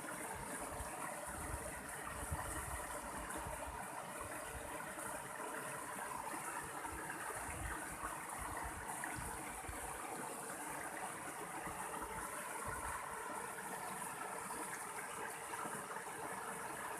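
Mountain stream flowing steadily, a continuous rush of running water.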